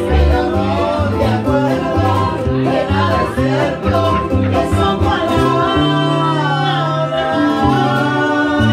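Live singing with guitar accompaniment: a woman sings over several strummed and plucked guitars and a steady stepping bass line. In the second half her voice slides through long held notes.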